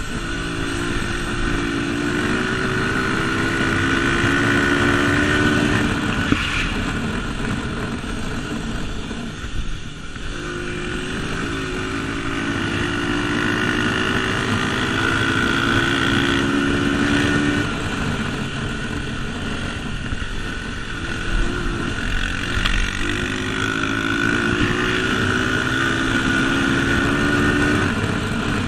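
Dirt bike engine heard from on board, pitch climbing as it accelerates down the straights, then backing off twice before pulling hard again.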